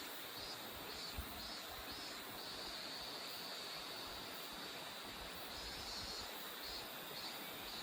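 Steady faint rush of a mountain stream, with an insect calling high above it in a run of short pulses about twice a second. The pulses pause in the middle stretch and start again near the end.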